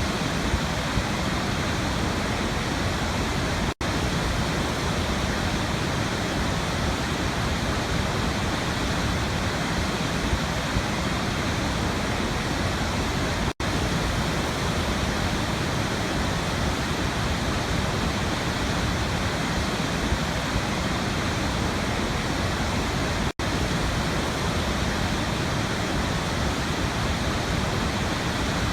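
Waterfall rushing in a steady, even roar of falling water. The sound cuts out for an instant three times, about ten seconds apart.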